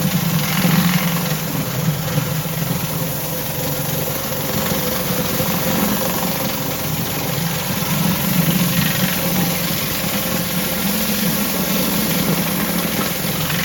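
Pressure washer's petrol engine running steadily under load, with the hiss of the high-pressure water jet on stone paving.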